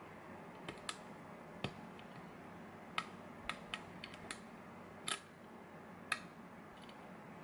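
Short hook pick and tension wrench working inside a GeGe pin-tumbler padlock: scattered light metallic clicks and taps at irregular intervals, about ten in all.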